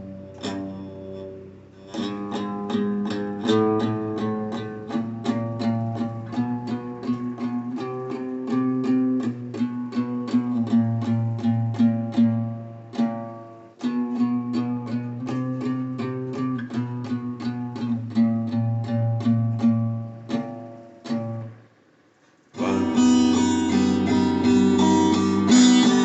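Guitar playing an instrumental break: a picked pattern of single notes and chords. Near the end it stops for about half a second, then comes back louder with strummed chords.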